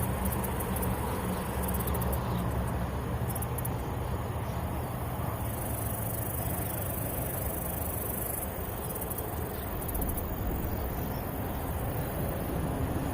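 Outdoor background of insects chirping in short rapid bursts over a steady low hum.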